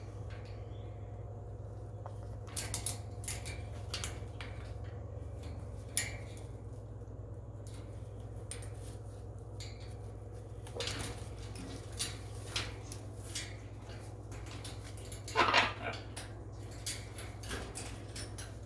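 Scattered light clicks and clinks of metal and hard objects, with a louder short rattle about fifteen and a half seconds in, made by a blue-and-gold macaw moving about its cage and food dishes.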